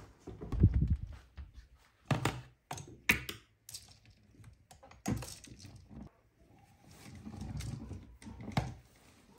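Clothes and plastic clothes hangers being handled in a wardrobe: a dull thump about half a second in, then scattered clacks of hangers and rustling of fabric.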